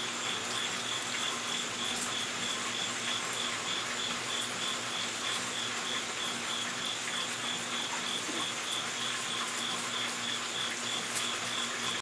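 A cricket chirping steadily, a high, even pulse about three or four times a second, over a steady background hiss.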